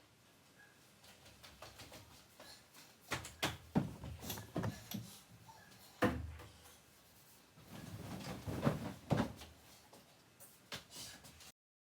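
Scattered sharp knocks and clicks in three busy stretches, the loudest a thump about six seconds in. The sound cuts off suddenly near the end.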